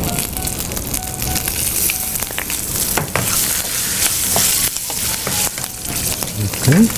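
A tempering of mustard seeds, lentils, dried red chillies, curry leaves and garlic sizzling in hot ghee in a metal kadai, stirred with a wooden spatula that knocks now and then on the pan.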